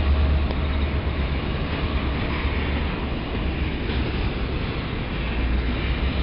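Freight train's covered hopper cars rolling past close by: a steady rumble of steel wheels on the rails.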